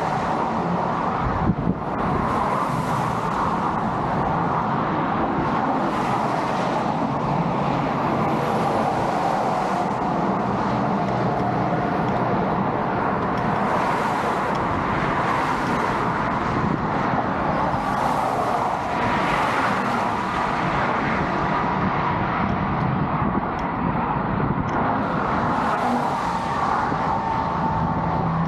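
Steady road traffic noise, with vehicles passing every few seconds.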